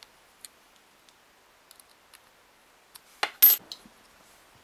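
Small metal baitcasting reel being handled after reassembly: a few faint ticks, then about three seconds in two sharp metallic clinks, the second ringing briefly.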